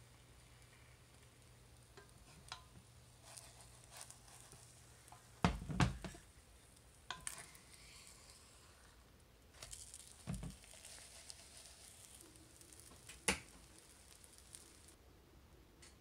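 Egg omelette sizzling faintly in a cast iron skillet, with a few knocks and scrapes of a wooden spatula against the pan, the loudest about six seconds in.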